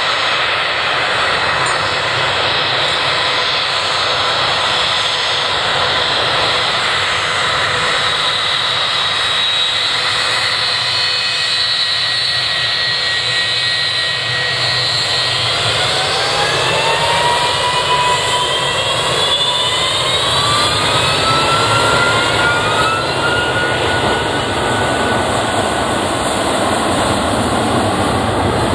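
Boeing 757-200 jet engines running at low power with a steady roar and whine. About halfway through they spool up, the whine rising in pitch over several seconds, then holds steady at takeoff power as the airliner starts its takeoff roll.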